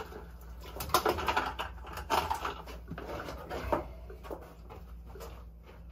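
Knocks and rustling handling noises, busiest in the first four seconds and then fewer, over a steady low hum.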